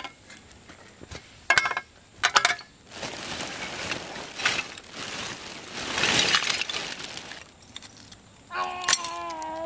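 Old glass bottles and shards clinking sharply a few times as they are shovelled into a plastic trash bag, then the bag's plastic rustling and crinkling as it is handled and shaken open. Near the end a long pitched sound with a wavering tone begins.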